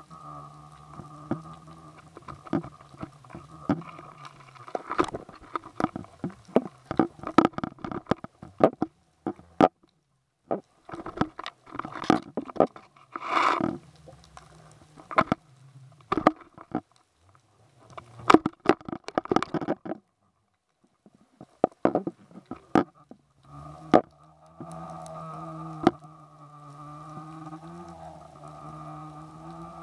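Underwater sound picked up through a camera housing lowered to the seabed on a fishing line: a steady low hum with overtones, broken from about four seconds to about twenty-four seconds in by many irregular clicks and knocks on the housing.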